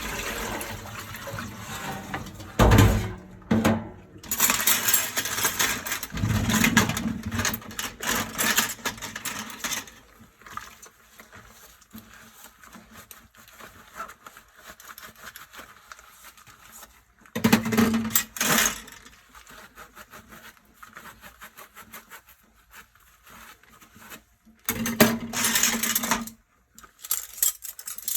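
Dishes being washed by hand at a sink. Tap water runs in several loud spells, and between them there is quieter scrubbing and clinking of dishes.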